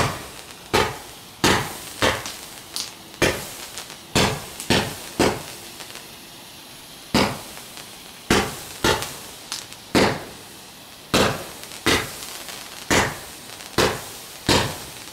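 Garden firework firing a string of sharp pops, about one to two a second, with a pause of about two seconds near the middle.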